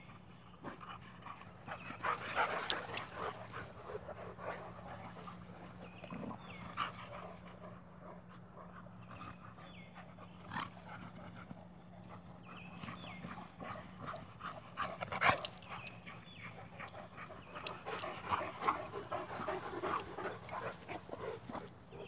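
Dogs playing, panting and making short noises in irregular bursts, busiest in the last few seconds.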